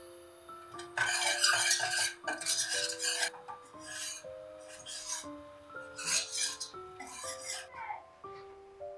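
A metal spoon stirring and scraping around the inside of a stainless steel saucepan in irregular strokes, over soft piano music.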